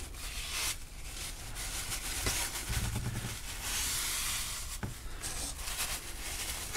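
Wad of blue paper towel rubbing back and forth over a cracked, resin-coated phone screen glass, wiping off the excess epoxy: a dry scuffing hiss that swells and fades with each stroke, with a couple of small clicks.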